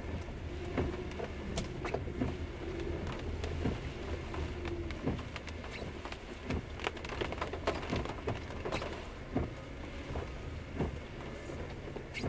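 Raindrops tapping irregularly on a car's windshield and roof, over the low steady hum of the car running and rolling slowly, heard from inside the cabin.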